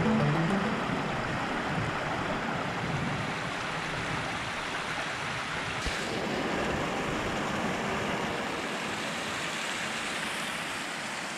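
Small creek cascading down over rocks: a steady rush of running water.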